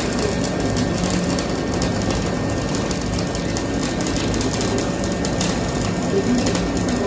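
Gas-shielded flux-cored arc welding with ESAB Dual Shield 7100 wire: the arc crackles steadily and evenly as a long continuous bead is run, over a steady low hum.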